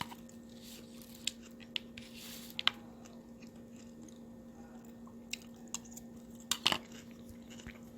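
A person chewing a mouthful of salad, with a handful of short crunchy clicks and smacks scattered through. A faint steady hum runs underneath.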